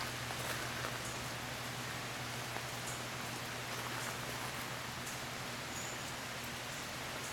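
Steady hiss of outdoor background noise, with a few faint short high chirps or ticks and a faint low hum.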